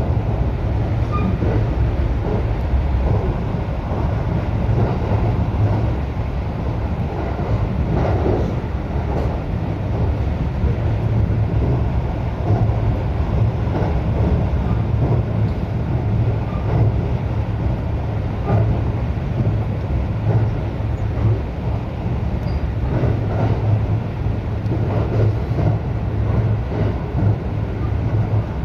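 Electric local train running at speed, heard from inside the passenger car: a steady low rumble of wheels on rail with faint scattered clicks.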